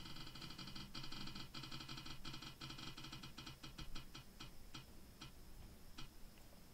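Spinning name wheel ticking, fast at first, the ticks slowing and spreading out as the wheel coasts to a stop.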